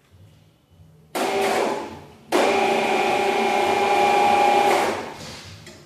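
A power tool with a steady whine runs in two bursts: a short one about a second in, then a longer one of about two and a half seconds that stops sharply.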